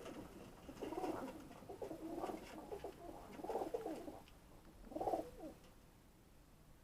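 Domestic pigeons cooing, about four low, warbling coos a second or so apart.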